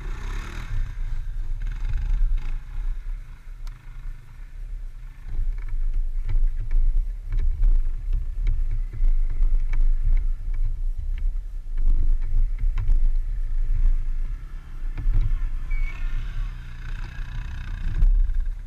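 ATV engines running as quad bikes pull away across muddy ground, under a gusting low rumble with scattered knocks and clicks from wind buffeting the microphone.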